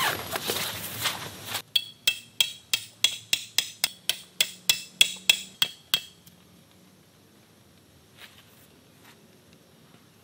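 A metal tent stake being hammered into the ground: about seventeen quick, ringing strikes at roughly four a second, stopping about six seconds in. A short rustling scrape comes before the strikes.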